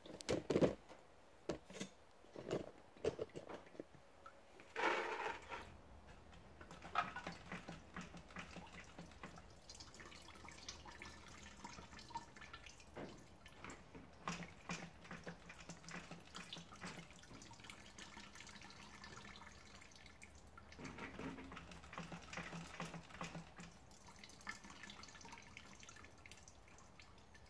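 Old two-stroke fuel dripping and trickling from a pit bike's fuel system into a container, with a few sharp knocks of handling in the first few seconds.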